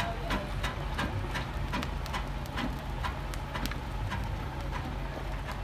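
1924 Frick steam engine running with a steady low hum and sharp rhythmic exhaust beats, about three a second, slowing and fading toward the end.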